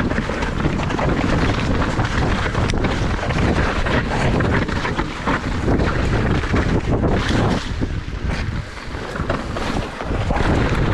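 Mountain bike descending a rocky dirt trail: wind rushing over the bike-mounted camera's microphone and tyres rolling over dirt and stones, with frequent small knocks and rattles from the bike going over bumps.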